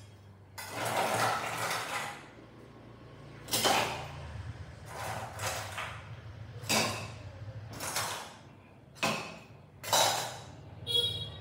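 Metal scoop scraping ice cubes out of a stainless steel bowl and tipping them into a metal cocktail shaker tin, about seven or eight scoops in a row, each a short scrape and clink of ice on metal.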